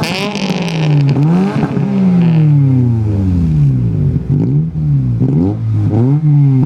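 Two cars revved at the same time: a 2001 Toyota Corolla's four-cylinder through an aftermarket N1 muffler and a Mitsubishi Eclipse with a high-flow catalytic converter. Their engine pitches rise and fall over and over, the two sets of revs overlapping.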